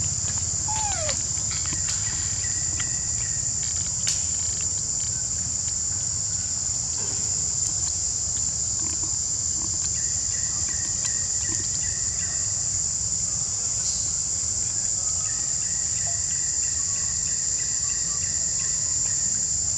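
Steady high-pitched drone of insects, with a low rumble underneath. A short falling squeak comes about a second in.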